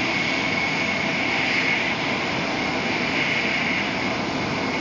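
Steady rushing cabin noise of a Shinkansen bullet train running at speed, heard from inside the passenger car, with a faint high whine running through it.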